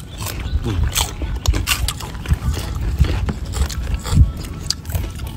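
Several people eating with their hands: chewing and lip-smacking, with irregular clicks and scrapes of fingers picking rice and fish off a plastic plate, over a low rumble.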